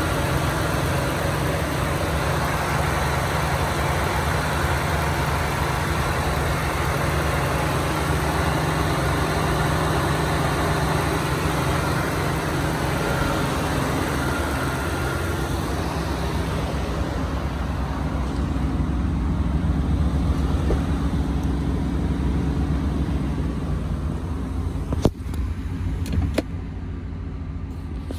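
Supercharged 5.0-litre V8 of a Shelby Super Snake F-150 idling steadily under the open hood. A few sharp knocks near the end.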